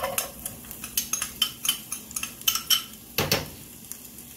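Irregular clinks and taps of kitchen utensils against a skillet and dishes, about a dozen, with a heavier knock about three seconds in, while diced onions go into the pan.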